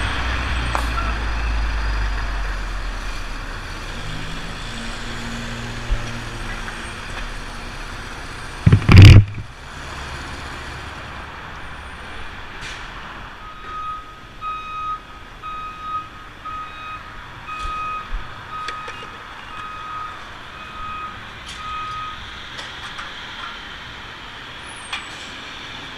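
1976 Honda XL175's single-cylinder four-stroke engine running as the bike rolls up to a stop. A loud thump comes about nine seconds in, after which the engine stops. Then a regular high beeping goes on for several seconds, about one and a half beeps a second.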